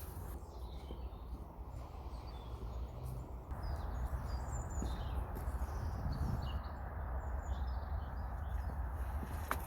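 Small birds chirping in short scattered calls over a steady low outdoor rumble, with a few sharp clicks near the end.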